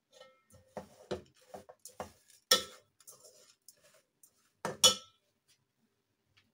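Metal slotted spatula scraping and knocking against the bottom of an aluminium pot while stirring sugar melting into caramel. The strokes are irregular, with two louder clanks about two and a half seconds in and just before five seconds.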